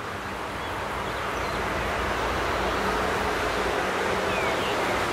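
Steady outdoor rushing noise with a faint low hum, swelling a little over the first two seconds and then holding level.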